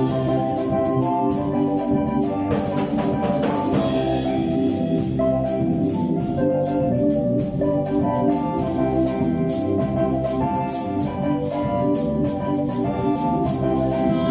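Praise music played by a band without singing: held chords over a steady, busy percussion beat.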